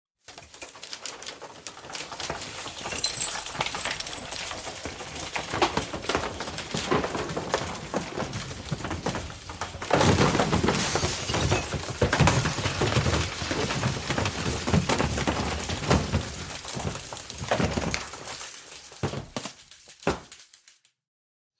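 Earthquake sound effect: a low rumble full of rattling, cracking and breaking glass. It builds up, is loudest about halfway through, then dies away to silence just before the end.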